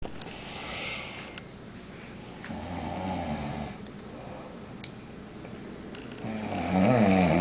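Sleeping people snoring: a breathy exhale at the start, a rasping snore about two and a half seconds in, and a louder, wavering snore near the end.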